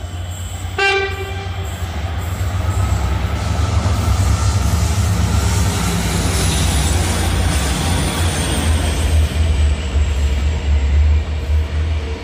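Renfe locomotive-hauled passenger train passing close, its locomotive giving a short horn blast about a second in. Then a steady heavy rumble of the locomotive and coaches going by, with a faint high whine slowly falling in pitch.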